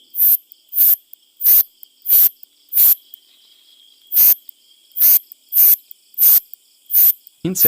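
Katydid (bush cricket) calling at close range: about ten loud, harsh, very high-pitched chirps repeated roughly every two-thirds of a second, with a short pause about three seconds in. A faint steady high tone from other insects runs behind.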